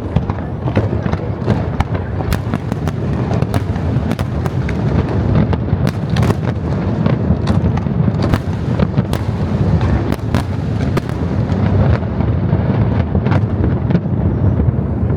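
Fireworks display: quick, closely spaced bangs and crackles over a continuous low rumble of booms.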